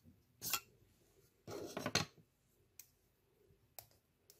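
A lipstick being handled and slid out of its paper box: a short rustle, then a longer scraping slide around one and a half seconds in, followed by three light clicks of the plastic lipstick tube.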